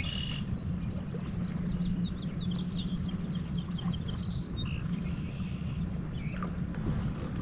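A small bird singing a quick run of short, high chirps about a second and a half in, over a steady low rumble.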